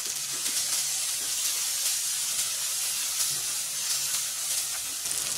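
Chopped onions, tomatoes and ground spices sizzling in hot oil in a steel kadhai, with a spatula stirring and scraping through the masala.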